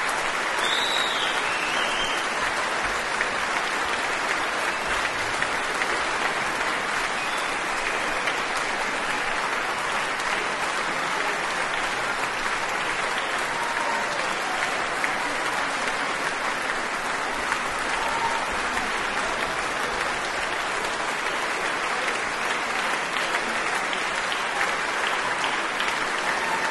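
Large concert-hall audience applauding, a dense, steady, unbroken clapping.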